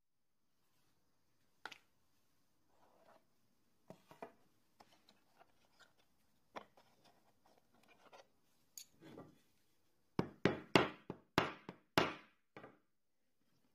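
Light clicks and taps of steel leather pricking irons being handled, then about eight quick, sharp strikes over two and a half seconds near the end: a mallet driving a pricking iron to punch stitching holes in the leather.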